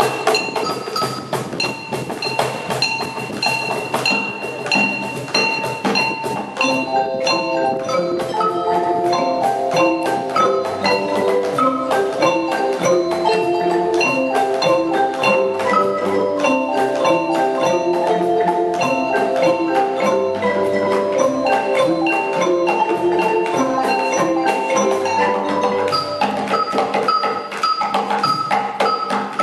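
A children's marimba and xylophone ensemble playing a tune with mallets, over steady box-drum strokes on a Meinl cajon. The full ensemble comes in about seven seconds in, filling out the notes, and thins out again near the end.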